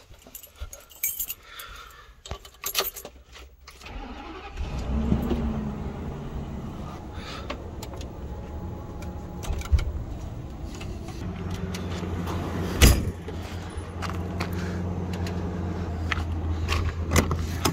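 Keys jangling and clicking for a few seconds, then the American motorhome's engine starts about four seconds in and runs at a steady idle. A single sharp knock comes about two-thirds of the way through.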